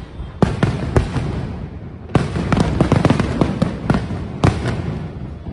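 Fireworks going off close by. A sharp bang comes about half a second in and another at about a second, then a dense run of crackling bangs from about two seconds, and two more loud bangs near the end.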